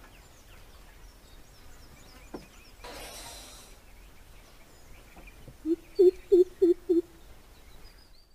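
Greater coucal calling: a run of about five deep, evenly spaced hoots lasting just over a second, near the end, over faint calls of small birds.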